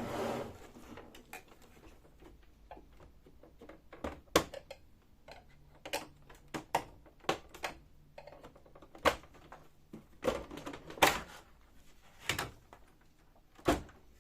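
Sharp plastic clicks and knocks at irregular intervals as a printer's plastic side cover is pried off its clips with a small flat screwdriver and lifted away.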